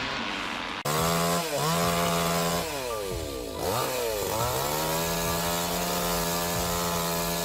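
Two-stroke chainsaw running at high speed, its pitch dropping and climbing back several times before holding steady. Just before it, a shorter stretch of rough saw noise cuts off abruptly.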